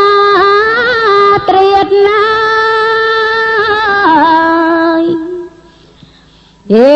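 Khmer smot, Buddhist verse chanted by a woman's unaccompanied solo voice in long held notes with wavering ornaments. The chanting breaks off about five seconds in for a pause of about a second and a half. It comes back in with a rising swoop near the end.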